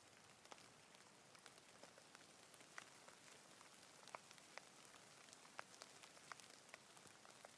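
Faint, steady rain hiss, with individual raindrops ticking sharply close by, about one or two a second.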